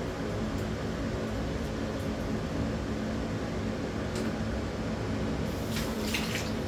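Kitchen chimney (range hood) fan running with a steady whir and low hum. A few light clicks come about four seconds in and again near the end.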